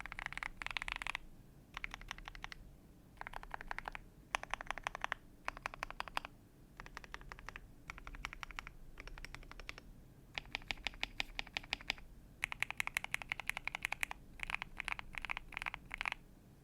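Keychron Q6 full-size mechanical keyboard with lubed Gateron G Pro 2.0 Silver linear switches being pressed in quick runs of keystrokes, with short pauses between runs. Early on the home row keys are pressed; then the stabilized long keys, such as the spacebar, enter, shift and backspace, are tapped repeatedly; near the end the G, H and J keys are pressed.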